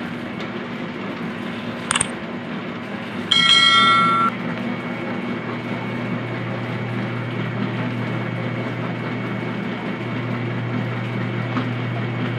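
Electric dough sheeter running steadily with a low hum as bread dough is fed between its steel rollers. A click about two seconds in, and a brief high-pitched ringing tone about three seconds in that lasts about a second.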